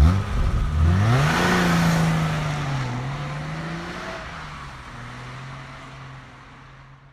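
Car engine revving up, its pitch climbing and then easing back down to a steadier note as it fades away.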